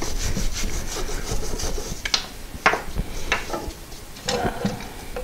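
Handling noise as the camera is moved and set in place: about two seconds of rubbing and scraping, then several sharp clicks and knocks.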